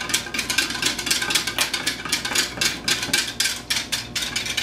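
Small wire whisk beating flour into milk in a measuring cup, a fast run of clinking strokes against the cup's sides, about six a second.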